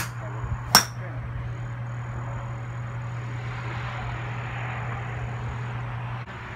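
Two golf shots: a club striking a ball at the very start, then another sharp strike about three-quarters of a second later. A steady low hum runs underneath and stops a little after six seconds in.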